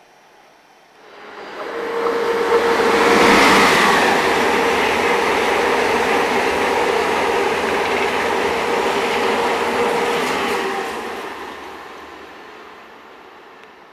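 ICE high-speed electric train passing close at speed. The rush of wheel and air noise builds about a second in, holds with a steady whine, then fades away over the last few seconds as the train recedes.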